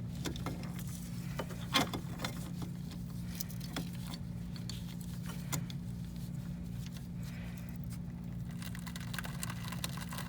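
Rusted spin-on oil filter of a 1980 Porsche 911SC being wrenched loose, giving scattered crunching clicks and creaks, the sharpest about two seconds in, over a steady low hum.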